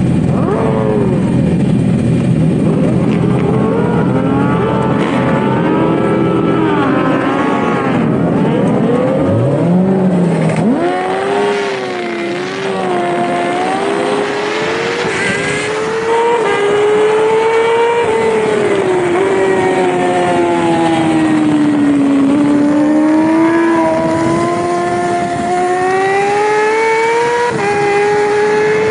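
Yamaha R6 600cc inline-four race bike engines revving unevenly on the grid. About nine seconds in, one engine's pitch climbs sharply as the bike launches from the race start. It then pulls hard, the pitch rising and stepping with each gear change.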